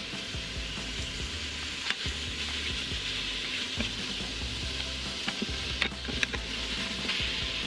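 Pork neck chunks sizzling in the dry stainless steel inner pot of an Instant Pot on Sauté mode, with no oil. A wooden spatula stirs them, knocking and scraping against the pot a few times.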